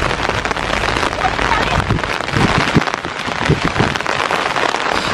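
Steady rain falling, a dense patter of drops with a few low thuds.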